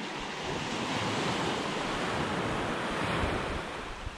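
Small waves washing onto a sandy beach, a steady rush of surf, with wind noise on the microphone.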